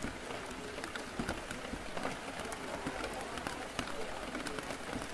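Steady rain on a café window with a low background murmur of voices, dotted with small clicks.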